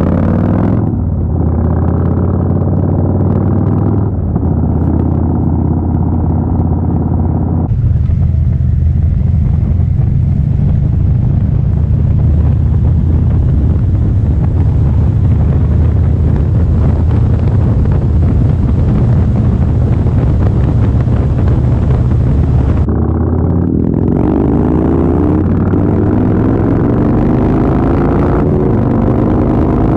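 Loud V-twin cruiser motorcycle engine running at low revs, its sound changing abruptly about eight seconds in and again a little before the end. In the last few seconds it accelerates, the pitch climbing several times in a row.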